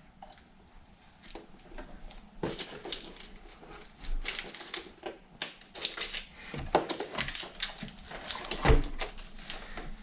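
Irregular clicks, taps and rustling of hands handling an iMac's loosened LCD panel and unplugging the cables behind it, with a couple of louder knocks in the second half, the loudest near the end.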